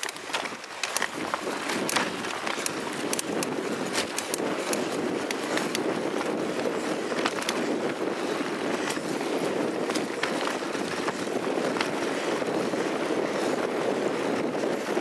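Mountain bike tyres rolling steadily over a dirt trail, with frequent sharp clicks and rattles from the bike and its mounted camera jolting over bumps.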